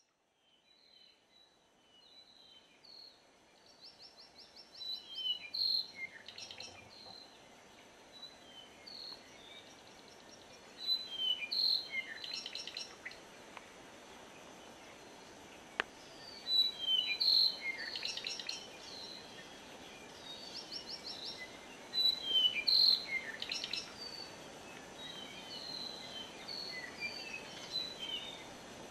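Forest birds singing: several overlapping chirps, short whistled notes and fast trills, with a louder song phrase about every five to six seconds, over a faint steady high-pitched insect hum.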